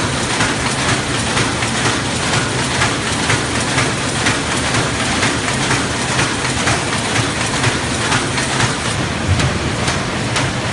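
Paper bag making machine running at speed, a steady loud mechanical clatter with a regular rhythm of clicks as it cuts and turns out kraft paper bags.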